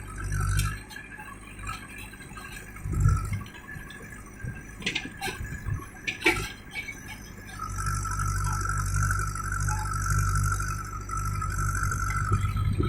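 JCB backhoe loader's diesel engine working, growing louder about eight seconds in and holding there with a steady whine over the engine hum. A few sharp clinks sound midway.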